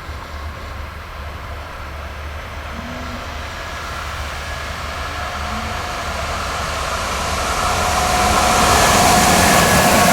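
Train approaching on the line, its running noise growing steadily louder, with a steady whine coming in over the rumble about halfway through as it draws near.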